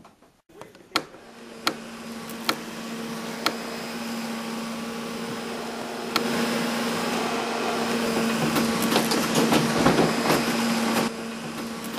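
A portable air conditioner starts up and runs, a steady hum with fan noise that builds and grows louder about six seconds in. Several sharp clicks come in the first few seconds, and a quick run of clicks and rattles comes near the end.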